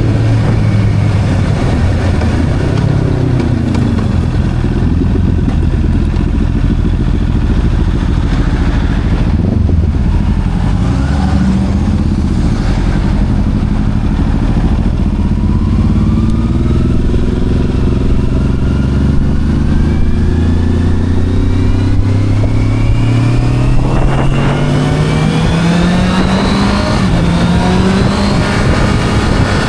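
Sport motorcycle engine running on the road, its pitch shifting up and down at first, then rising slowly and steadily through the second half as the bike accelerates.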